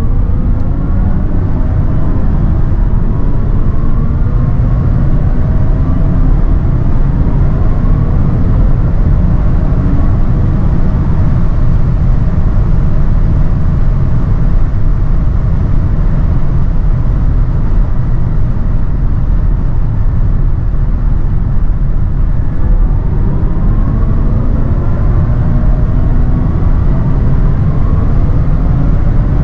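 Cabin noise of a 2023 BMW i7 xDrive60 electric sedan at high Autobahn speed: a steady low rumble of tyre and wind noise, with a faint rising tone during the first ten seconds or so as the car accelerates.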